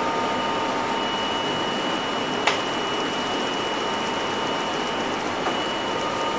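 Interior of an R32 subway car running between stations: a steady rumble of wheels on rail with a constant motor whine, and a single sharp clack about two and a half seconds in.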